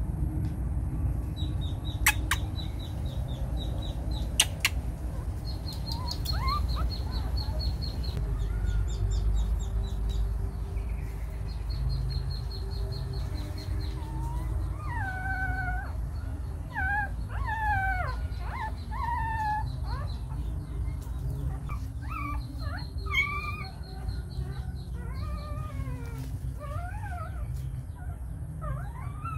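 Short animal calls that rise and fall in pitch, repeating many times from about halfway on, over a steady low rumble; two sharp clicks a few seconds in and faint, quickly repeated high chirps.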